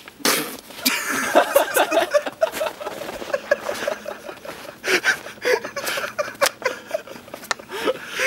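Men laughing and snickering in short, broken bursts.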